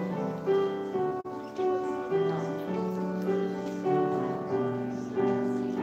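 Piano playing slow music in held chords, the notes changing about every half second to a second, with a momentary break in the sound about a second in.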